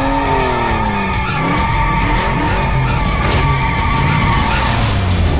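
Sound-effect race car: its engine revs up and drops back, then its tyres screech in one long steady squeal that cuts off about four and a half seconds in.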